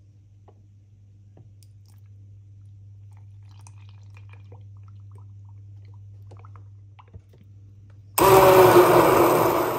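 Almond milk poured quietly into a plastic beaker, then about eight seconds in a stick blender switches on suddenly and runs loudly, churning frozen berries, oats and protein powder into a shake.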